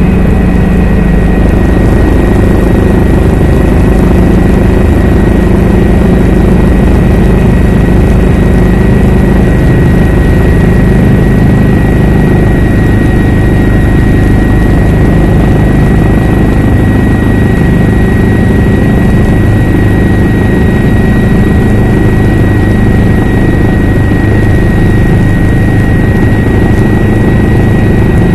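A helicopter in flight, heard on board: loud, steady rotor and engine noise with a thin, steady high whine over it.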